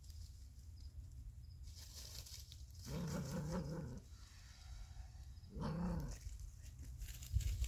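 Two low, drawn-out animal vocal sounds: one about a second long near three seconds in, and a shorter one near six seconds in.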